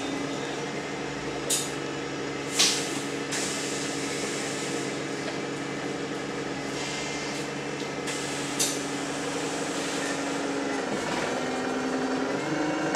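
Wright StreetLite single-deck bus heard from inside the saloon, its diesel engine and drivetrain running with a steady hum. There are three short, sharp hisses of air, the loudest a few seconds in, and near the end the engine note dips and then rises again.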